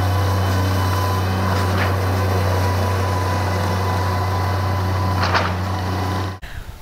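Skid-steer loader engine running at a steady pitch, a low, even drone, with a couple of faint knocks. The sound cuts off abruptly just before the end.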